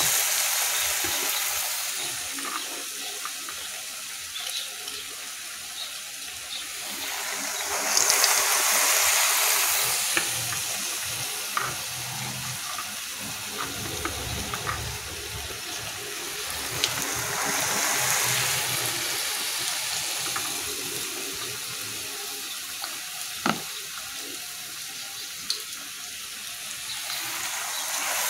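Hot oil sizzling and bubbling steadily around ragi-battered banana fritters deep-frying in a pan, swelling louder twice, with a few light clicks and knocks of utensils.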